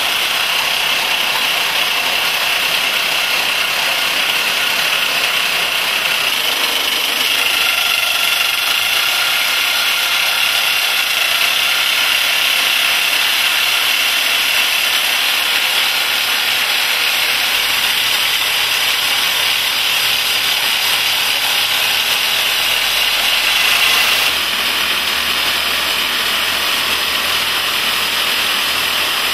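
Rock drill on a Siton drilling jumbo boring a blast hole into a tunnel rock face, a loud, steady drilling racket. About 24 s in the sound drops a little and changes tone.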